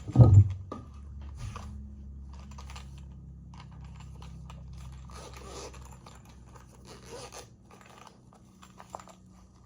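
Packaging being handled during an unboxing: a thump just after the start, then scattered rustling, scraping and light clicks of cardboard and plastic.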